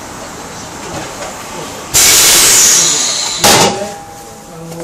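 Compressed air hissing loudly: it starts suddenly about two seconds in, runs for about a second and a half, and is followed by a short sharp blast of air.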